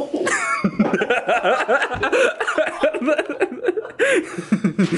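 People laughing and chuckling, mixed with snatches of speech.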